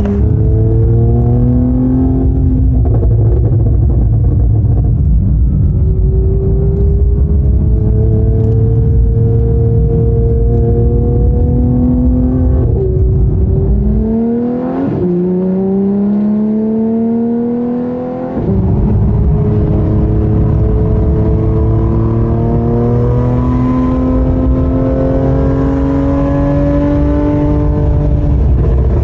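Porsche 992 GT3's naturally aspirated 4.0-litre flat-six through a Soul Performance competition exhaust, accelerating in long pulls. The engine note climbs steadily in each gear and drops in pitch at each upshift, several times. For about four seconds midway the deep rumble falls away, leaving the rising higher note.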